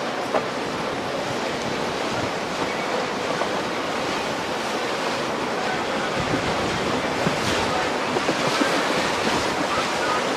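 Steady rush of breaking waves and churning water, with wind buffeting the microphone.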